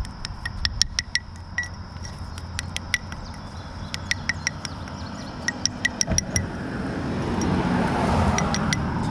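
Magnet-fishing magnet with a rusty bolt stuck to it tapped and scraped against a concrete bridge railing to knock the rust off, making a run of sharp metallic clinks and clicks. A rushing noise swells over the last few seconds.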